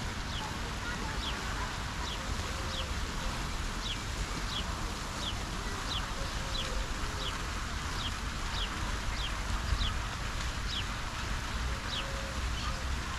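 A small bird repeats a short, high, falling call about twice a second. Behind it is the steady hiss of a fountain's jets falling into a lake, with a low rumble of wind.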